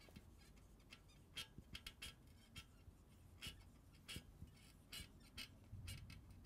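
Faint squeaks and scratches of a marker pen on a whiteboard, in short irregular strokes as words are written.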